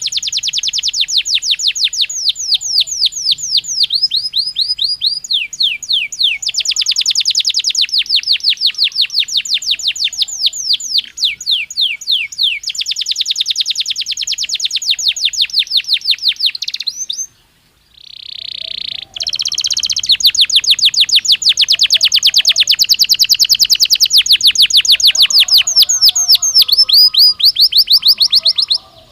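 Belgian canary (domestic canary) singing: long rolling trills of fast repeated notes, each a quick downward sweep, with the tempo and pitch shifting from tour to tour. The song breaks off briefly a little past the middle, resumes, and stops just before the end.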